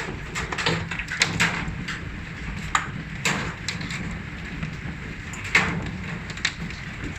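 Hailstones pelting down, a steady rush with irregular sharp knocks and clicks of individual stones striking hard surfaces. The loudest hits come about a second and a half in, past three seconds and around five and a half seconds.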